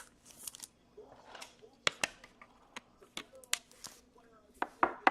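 Trading cards being handled and flipped through by hand: a run of sharp clicks and snaps, with soft sliding rustles between them.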